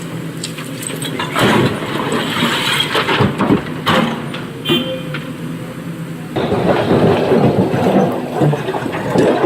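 SANY SY225 excavator's diesel engine running under load, with bursts of heavy clattering and scraping of quarry rock: one burst from about a second and a half in, a louder, denser one from about six seconds in.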